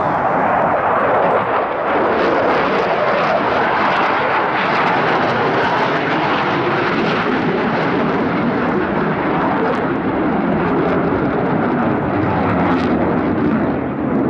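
Jet noise from Blue Angels F/A-18 Super Hornets in flight: a loud, steady rush of turbofan engines that holds for the whole stretch.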